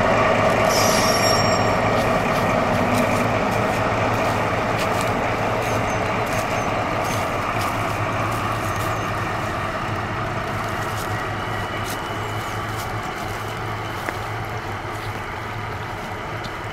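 DR class 118 diesel-hydraulic locomotive hauling a loaded timber train: a steady engine drone and wagon rumble, fading steadily as the train pulls away. A brief high squeal about a second in.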